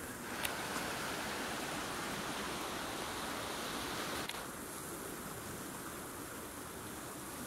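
Flooded creek, the swollen floodwater rushing steadily. Small clicks about half a second in and about four seconds in, after which the rush sounds duller.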